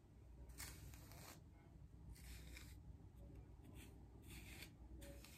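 Faint scratchy strokes of a comb and hairbrush being pulled through thick, coarse natural hair: a few separate slow strokes, each under a second long.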